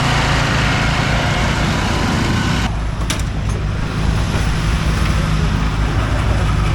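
Racing riding-mower engine running steadily under a loud, rushing noise that drops away sharply about two and a half seconds in, with a sharp click just after.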